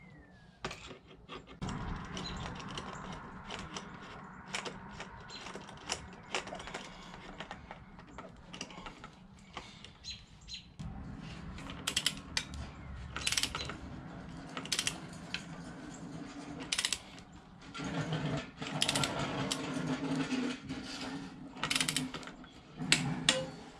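Socket ratchet clicking in irregular short runs as a rear-set saver bolt on a Honda Grom is wound in and tightened, with small knocks of metal tools between the runs.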